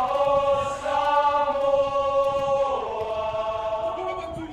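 Group of male voices singing a long held chord in harmony, changing to a new chord about three seconds in.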